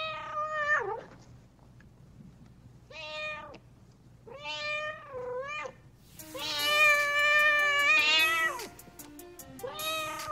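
A cat meowing five times with pauses in between; each meow rises and falls in pitch, and the one about six seconds in is long and drawn out. A few notes of music sound under that long meow.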